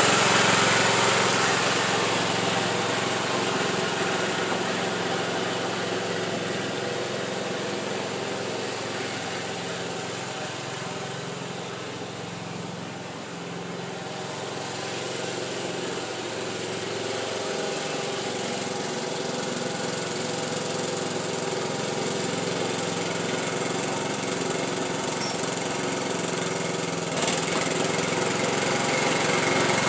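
Craftsman YT3000 riding lawn tractor's engine running steadily while being driven. It fades to its faintest about halfway through as it moves off, then grows louder again as it comes back.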